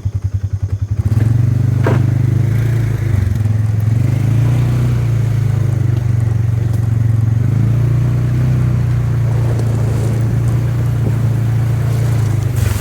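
A vehicle engine running close by, chugging in quick pulses at first, then held at a steady, louder, higher speed from about a second in.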